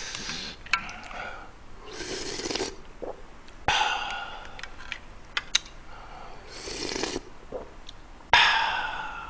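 Spoonfuls of spicy mussel jjamppong broth being slurped, each followed by a breathy exhale, with the loudest slurp and exhale near the end. A few sharp clinks of the spoon on the metal pot come between them.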